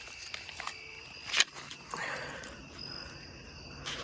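Insects, crickets or the like, chirring steadily in the background, with light rustling and small clicks and one sharp click about a second and a half in.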